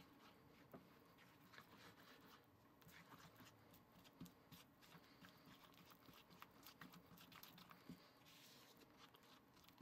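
Near silence, with faint soft scrapes and small ticks of a rubber spatula stirring stiff powdered-sugar frosting in a small plastic bowl.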